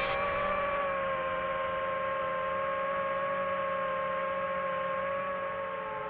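DJI FPV drone's motors and propellers whining steadily at a fairly constant pitch, the pitch sagging a little near the end as the throttle eases.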